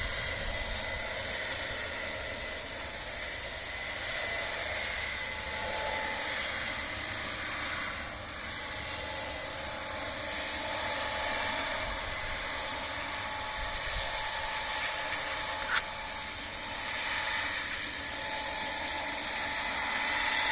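Farm harvest machinery running steadily: a constant mechanical drone and hiss with steady high whines, and one sharp click about three-quarters of the way through.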